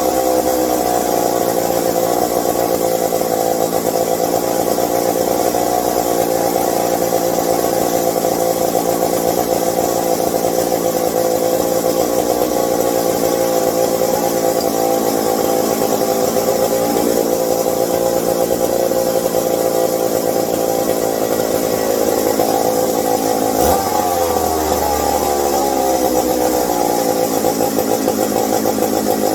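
McCulloch 740 vintage chainsaw's two-stroke engine running steadily, its pitch dipping and then climbing again a little after two-thirds of the way through. The owner puts its poor running down to a carburetor fault.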